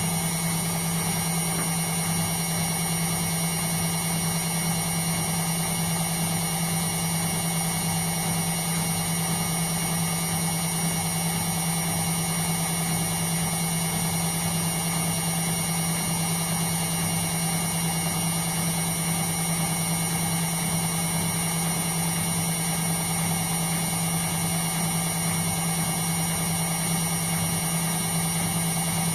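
Indesit washing machine running with a steady, even motor hum that does not change.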